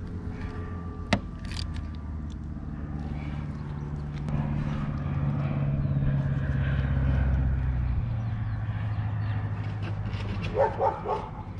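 A dog barks in a quick run near the end, over a low hum that swells for a few seconds in the middle and then eases off. One sharp click about a second in.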